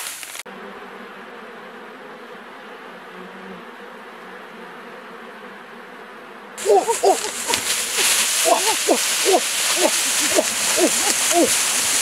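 A colony of giant honeybees humming steadily at their hanging comb. Near the middle the hum gives way to a loud rustling hiss, with a run of short hooting calls about two a second.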